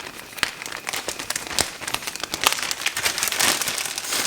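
Plastic wrapping crinkling and rustling as it is handled, with many small irregular clicks and taps.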